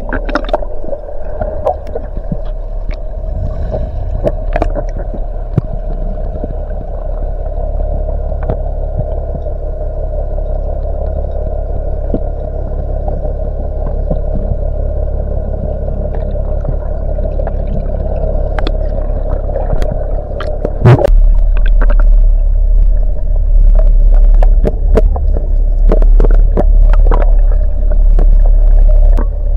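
Muffled underwater sound picked up through an action camera's waterproof housing: a steady hum over a low rumble, with scattered sharp clicks. About 21 seconds in there is a knock, and the low rumble then grows much louder.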